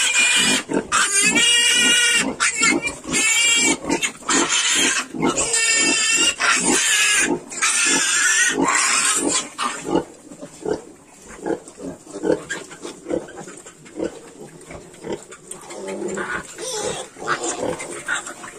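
Yorkshire piglets squealing loudly and repeatedly, with short high cries one after another. About halfway through this gives way to quieter, rhythmic low grunting, about two a second, as the piglets nurse on the sow.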